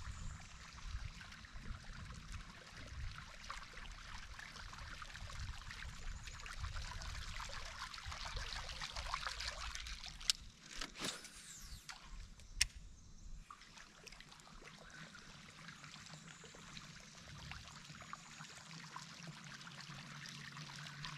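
Quiet river ambience: water trickling and lapping under a low, uneven rumble. About halfway through there are two sharp clicks a couple of seconds apart.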